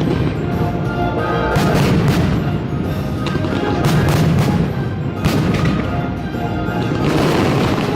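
Fireworks bursting, with several sharp booms that echo away, a second or two apart, over the show's loud soundtrack music.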